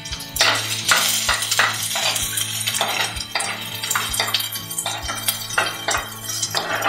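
Steel spoon stirring shallots, garlic and ginger in oil in a clay pot, scraping and knocking against the pot about three times a second.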